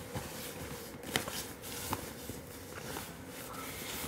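Rustling with a few sharp clicks and knocks from items being rummaged through in a duffel bag, over a faint steady room hum.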